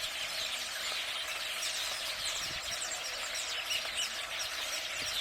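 A dense chorus of birds chirping, many short, quick downward-sliding calls overlapping over a steady background hiss.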